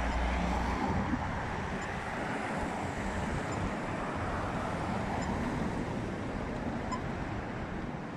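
Road traffic at a town intersection: cars driving past, loudest in the first second as an SUV passes close, then a steadier running hum of traffic, with some wind on the microphone.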